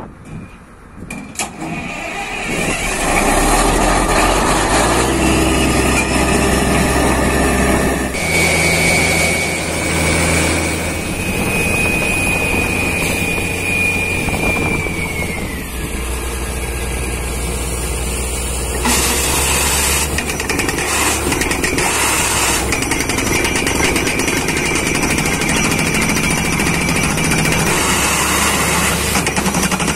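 Borewell drilling rig and its truck-mounted Excel XRV 1200 air compressor running: after a brief lull the machinery comes up to a loud, steady run. A high whine slides down in pitch and stops, and a hissing rush joins about two thirds of the way through.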